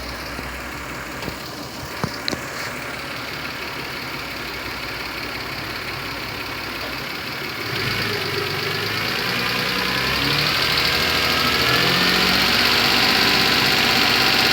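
A 1996 Toyota Camry's V6 engine idling, with two light clicks about two seconds in. About halfway through, the engine speed is raised: the sound grows louder and climbs in pitch, then holds at the higher speed.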